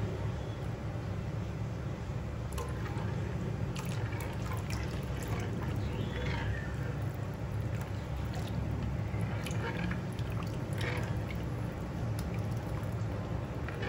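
Simmering stock in a pan being stirred with a plastic ladle: liquid sloshing and dripping, with scattered small splashes and ladle knocks over a steady low hum. The gravy is being thickened with a potato-starch slurry.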